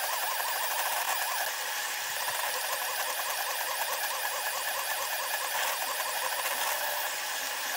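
SeeMeCNC Orion delta 3D printer's stepper motors whining as the print head moves, in audio sped up tenfold, so the sound is a high-pitched whine that warbles up and down several times a second over a steady hiss.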